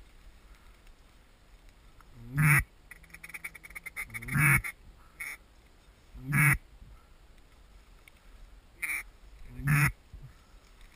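Mallard duck call blown by a hunter: a handful of loud hen-style quacks about two seconds apart, each rising in pitch at the start, with a fast string of short clucks just after the first.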